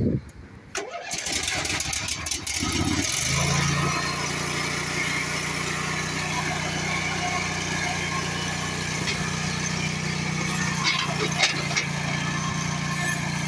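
Engine of a home-built zero-turn mower, built from a Toro TimeCutter, is started. It catches about three seconds in and then runs steadily. Near the end come a few knocks as the mower rolls down the trailer's ramp.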